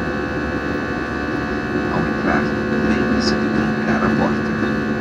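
Steady drone of an Airbus A320 heard inside the passenger cabin: engine and airflow noise with several fixed tones over an even low rumble.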